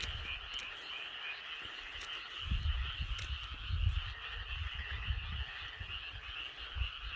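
Dense, unbroken chorus of frogs and boreal digging frogs (maengkkongi) calling together. A low rumble joins underneath from about two and a half seconds in.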